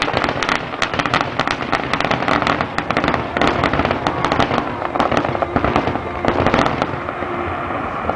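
Fireworks display going off: a dense, continuous rattle of bangs and crackles from many bursting shells.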